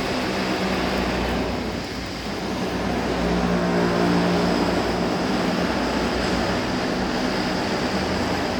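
A machine running steadily: a pitched hum with a hiss over it, swelling a little louder about three seconds in before settling.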